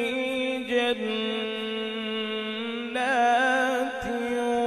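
Male Qari reciting the Quran in melodic tajweed style, drawing out a long held note between the words 'fi' and 'jannatin'. About three seconds in the voice climbs higher and louder with a wavering ornament.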